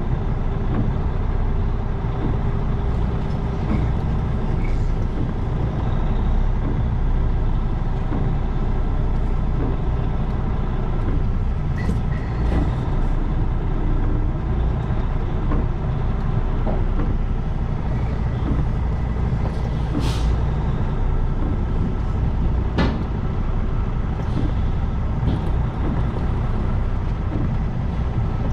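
Semi-truck diesel engine running steadily, heard from inside the cab as a low drone. A few short sharp clicks and hisses stand out about twelve, twenty and twenty-three seconds in.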